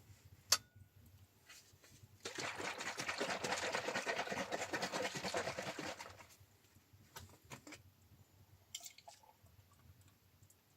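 Liquid being poured for about four seconds, starting suddenly and tailing off, with a sharp click just before it and a few light knocks afterwards.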